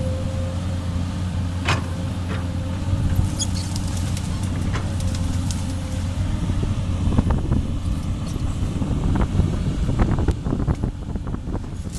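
Komatsu PC200 excavator's diesel engine running steadily, with scattered short knocks and clicks that grow busier in the second half.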